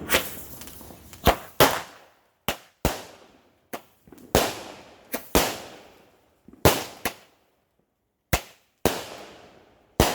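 A 200-gram consumer firework cake, Flashing Fireworks' Cherry Pie, firing shot after shot: about a dozen sharp bangs, often in close pairs, each fading out over up to a second.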